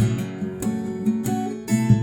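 Solo acoustic guitar played fingerstyle: a plucked melody over bass notes, with sharp struck chords near the start and again just before the end.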